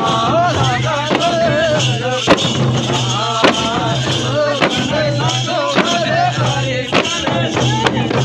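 Nepali chudka folk music for dancing: voices singing a wavering melody over a steady percussion beat, with a strong stroke about once a second.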